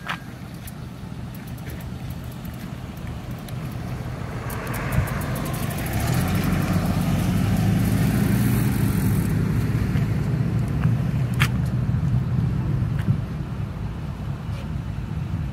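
Road traffic: a vehicle driving past, its rumble and tyre hiss building for several seconds to a peak about halfway through and then easing off, with a few sharp clicks along the way.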